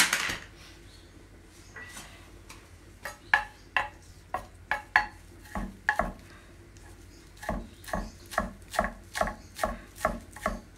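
Chef's knife chopping fresh coriander on a wooden chopping board. A sharp knock at the start, then scattered cuts, settling into a steady run of about three chops a second for the last few seconds.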